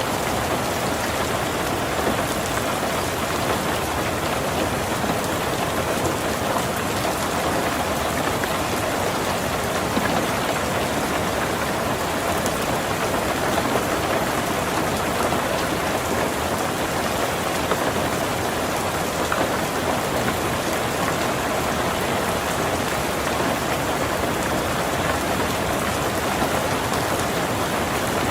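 Heavy rain falling steadily on a tin roof, an even, unbroken wash of drops.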